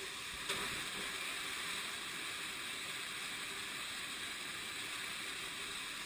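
Waterfall pouring down a rocky gorge: a steady hiss of rushing water, with a short knock about half a second in.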